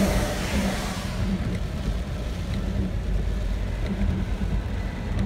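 A road vehicle passing by: a broad whoosh swells and fades in about the first second, over a steady low rumble.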